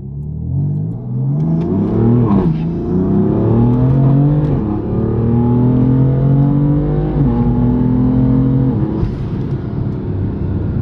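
Car engine accelerating hard through the gears: the pitch climbs, falls away at each upshift several times, then climbs again.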